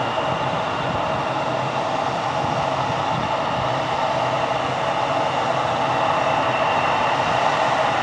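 Embraer E175 airliner's General Electric CF34 turbofan engines running at low power, a steady whine and rush that grows a little louder near the end.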